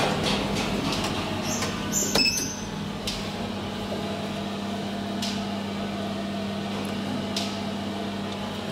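Steady hum inside an elevator car, with a few clicks and a short electronic beep about two seconds in.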